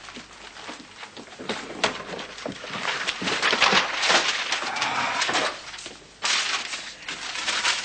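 Papers rustling and loose objects clattering as someone rummages hastily through a cluttered shelf and tosses papers about. It gets busier a few seconds in and drops off for a moment just before the end.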